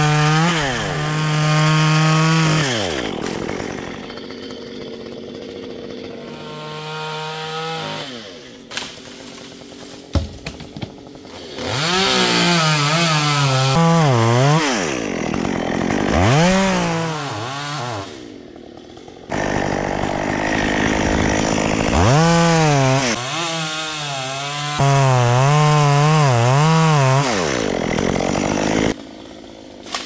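Two-stroke Stihl chainsaw revving in repeated runs between idles, its pitch wavering up and down as it cuts into eucalyptus wood. A couple of sharp knocks come in a lull between runs.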